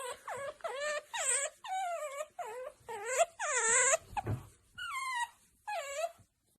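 Otter giving a quick series of about a dozen whining cries, each sliding down in pitch, with short gaps between them. The longest and loudest cry comes about three and a half seconds in.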